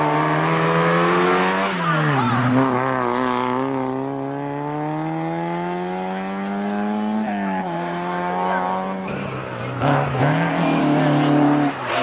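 Fiat Uno rally car's engine at high revs on loose gravel, easing off about two seconds in and then pulling up steadily in pitch as it drives away, dropping again past halfway. In the last few seconds a second rally car, a Peugeot 205, arrives with its engine revving hard and tyres scrabbling on gravel.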